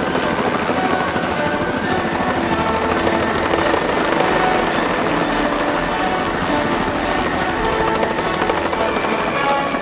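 Helicopter in flight: steady, loud rotor and engine noise.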